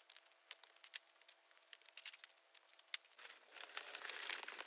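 Faint scattered clicks, then a rustling, crinkling noise that builds from about three seconds in.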